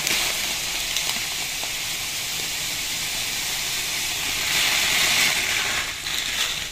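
About 3 kg of granulated sugar poured in a steady stream into water in a large metal pot: a steady hiss that tails off near the end as the pour stops.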